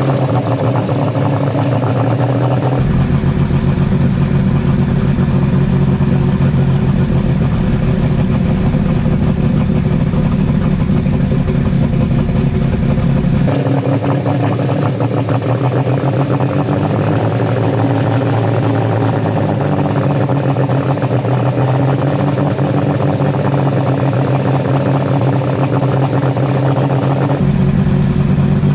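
Superstock pulling tractor's diesel engine idling at a steady pitch, heard close from on board. A deep low rumble cuts in abruptly about three seconds in, drops away about halfway through and returns near the end.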